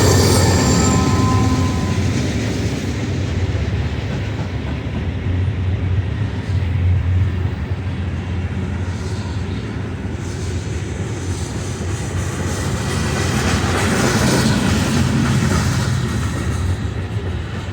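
Norfolk Southern manifest freight train rolling past, its cars running by with a steady low rumble and wheel-on-rail noise.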